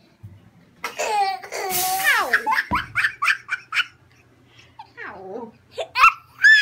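A young child laughing: a burst of quick, high giggles starting about a second in, then a pause and more high squealing laughs near the end.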